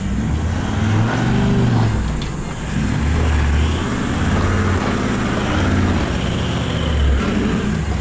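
A 4WD's engine revving in repeated surges, the pitch climbing and dropping every second or two, as it works at a slippery, muddy climb.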